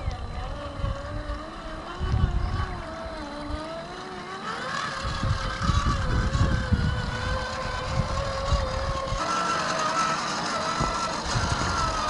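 Electric motor and two-speed gearbox of an RC4WD Trail Finder 2 scale crawler whining as it scrabbles up wet rock, the pitch wavering with the throttle and rising in the second half. Gusts of wind rumble on the microphone underneath.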